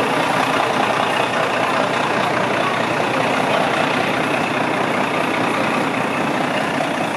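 A steady, even mechanical drone with no distinct events.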